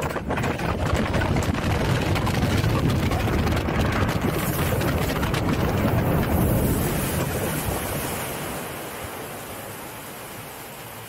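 Wind rushing over the onboard microphone as a Mack Rides water coaster boat runs down its drop. The boat then hits the water with a long splash, spray hiss from about four to seven seconds in, and the noise fades to a quieter wash as the boat slows through the channel.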